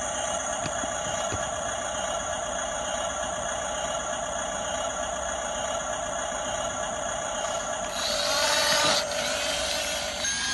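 Electric motors and gearing of a radio-controlled model bulldozer whining steadily, growing louder and harsher for about a second near the end.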